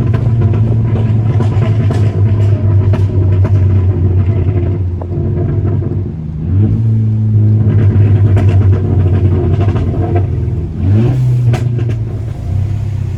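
Tuned Mk6 Volkswagen GTI's turbocharged four-cylinder engine and exhaust pulling under load. The engine note drops away twice, about six and ten seconds in, and each time climbs back up in pitch. A few sharp cracks are scattered through it.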